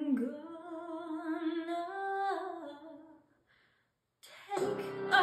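A woman singing a slow, wordless unaccompanied line with vibrato, holding long notes that step upward, trailing off about three seconds in. After a brief silence, louder music with accompaniment starts near the end.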